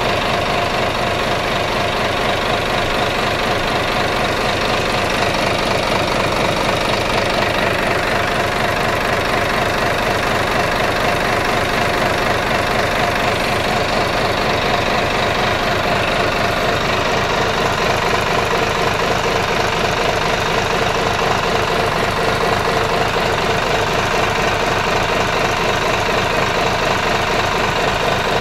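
Sinotruk six-cylinder diesel engine running steadily with its valve covers off, the rocker arms and valves giving a fast, even clatter over the engine's running note.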